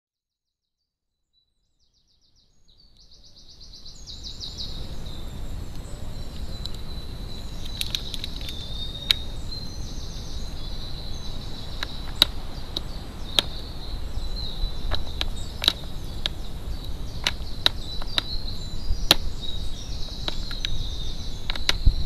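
A crow's beak pecking at seeds and hazelnuts on a plastic feeder tray: sharp, irregular clicks and taps. They come over a steady high tone and a low rumble that start about three seconds in, after silence.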